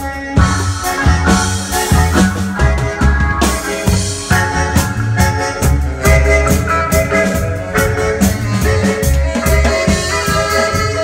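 Live reggae band playing, with a melodica carrying the lead over a heavy bass line and a drum kit keeping a steady beat.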